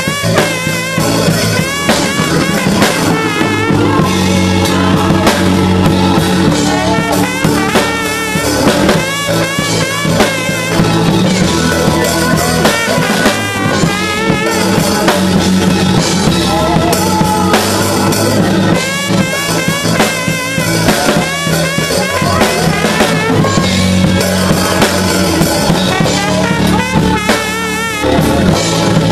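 Live church praise music: a praise team singing over a drum kit, with a trombone played close by.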